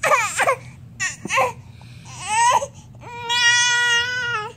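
Baby fussing: a few short, whiny cries with sliding pitch, then one long, steady cry held for over a second that drops in pitch as it ends.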